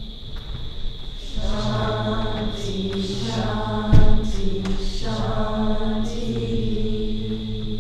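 A yoga class chanting together in unison, the closing chant sung in several sustained phrases with short breaths between them. A single sharp thump comes about halfway through.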